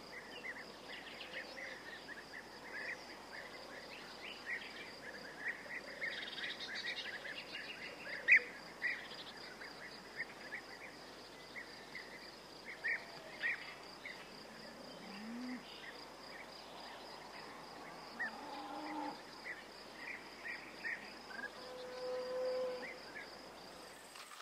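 Meadow ambience: a steady, faint high insect trill, typical of crickets or grasshoppers, with short bird chirps repeating throughout.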